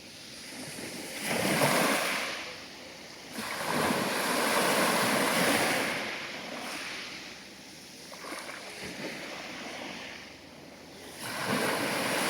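Sea waves breaking and washing in, a hiss that swells and fades in surges: a short one about a second in, a longer one from about three seconds to six, and another building near the end.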